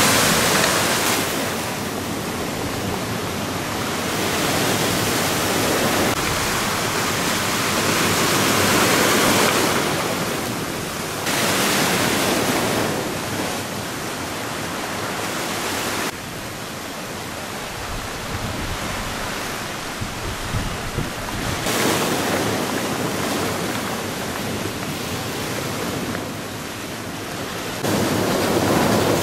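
Storm waves whipped up by a lodos gale crashing against a seawall and surging onto the shore: a loud, continuous rush of breaking water that swells and eases every few seconds, with wind blowing across the microphone.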